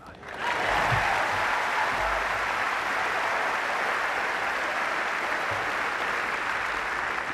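Large tennis crowd applauding a won point, breaking out suddenly just after the start and holding steady.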